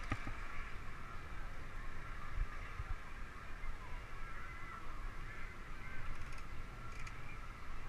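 Wind rumbling on a bicycle-mounted camera's microphone while riding, with a steady, wavering high squeaking mixed in.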